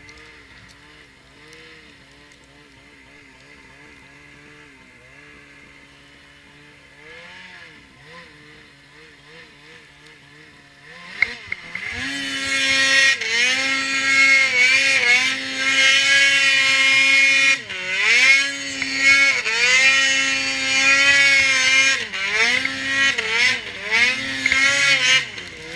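Ski-Doo Freeride 800 snowmobile's two-stroke engine running at low throttle with its pitch wavering, then about eleven seconds in opening up to a loud high-revving run. The pitch rises and falls with the throttle, dropping briefly a few times.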